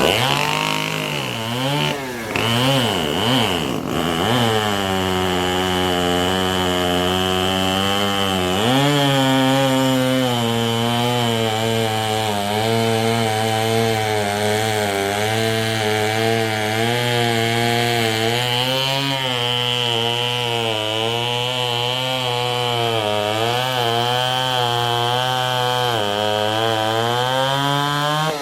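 Two-stroke racing chainsaw running flat out through a timed log cut: the engine revs up and down in the first few seconds, jumps higher about eight seconds in, then holds at high revs with a wavering pitch as the chain bogs and clears in the wood, dipping briefly near the end.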